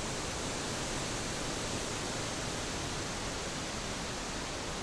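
A steady, even hiss of background noise with nothing else in it.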